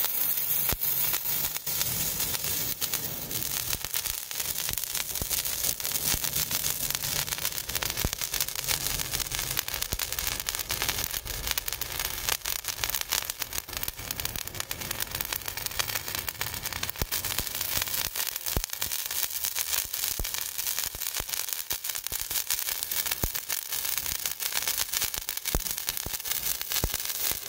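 Inoue Gangu Enka 'Asagao Susuki' handheld sparkler burning: a steady hissing spray of sparks, thick with fine crackles, which stops at the end.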